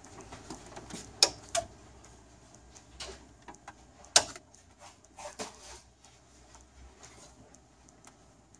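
A few separate sharp clicks and knocks from plastic: the mains power plug being handled and pushed into the rear inlet of a Canon iR 1600 copier, with two louder clicks about a second in and about four seconds in. The copier is being power-cycled to clear a fuser error.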